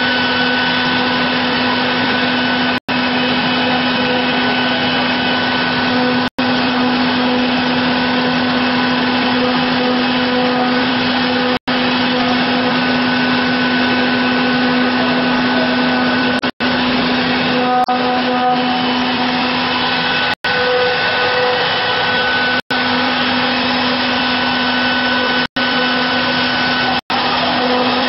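A CNC router running, a loud steady machine noise with a constant hum and a fainter whine above it. The sound cuts out for an instant every few seconds.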